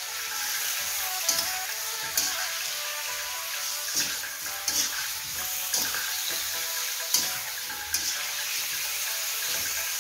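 Raw chicken pieces sizzling in hot oil in an iron karahi while a metal spatula stirs them, scraping and knocking against the pan every second or so; the chicken is being seared in the oil until its colour changes.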